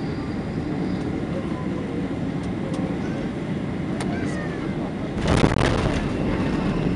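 Boeing 767-300ER landing, heard from inside the cabin: a steady rumble and hiss of engines and rushing air. About five seconds in a sudden louder rush sets in and stays raised.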